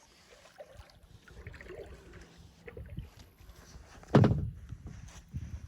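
Kayak paddling: soft paddle strokes and water movement around the hull, with one short, loud knock about four seconds in.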